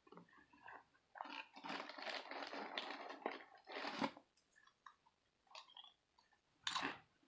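Cheese pizza Cheez-It crackers being crunched and chewed: a dense run of crunching from about a second in until about four seconds, then a few softer chews and one sharp crunch near the end.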